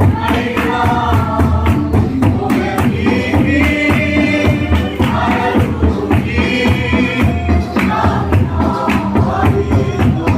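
Group singing of a gospel hymn with a steady percussion beat, the voices in chorus over a regular pulse.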